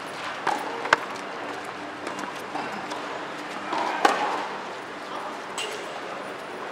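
Tennis racket striking the ball during a rally: two sharp pops about three seconds apart, about a second in and about four seconds in, with a few fainter knocks between.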